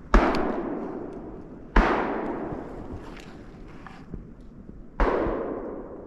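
Three gunshots, the second about a second and a half after the first and the third about three seconds later, each trailing off in a long rolling echo. These are a hunter's shots at a coyote being run by hounds.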